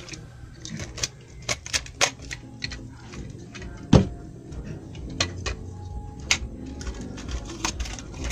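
Blue plastic tape dispenser being handled and a roll of clear tape fitted onto it: irregular light clicks and taps of plastic, with one louder knock about four seconds in.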